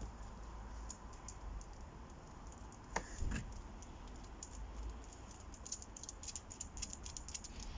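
A single knock about three seconds in, then a quick run of light clicks and rattles near the end.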